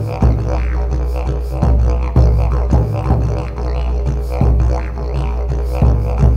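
Wooden didgeridoo played as a deep, continuous drone with a stack of overtones, pulsed by quick rhythmic accents.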